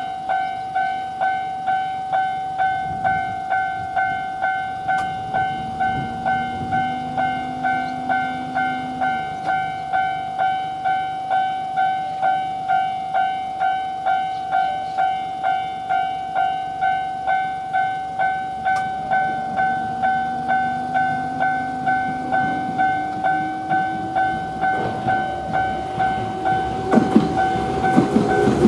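Japanese railway level-crossing warning bell ringing its steady 'kan-kan', about three strikes every two seconds. In the last couple of seconds an approaching train's rumble rises over it.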